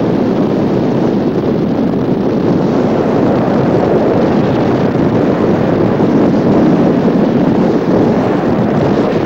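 Loud, steady rushing noise of wind buffeting the camcorder's microphone.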